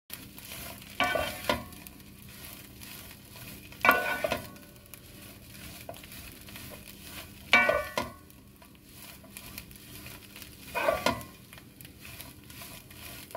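Wooden spoon stirring and pressing fried chopped herbs in a nonstick pan, over a faint steady sizzle, with four louder spoon strokes about every three seconds.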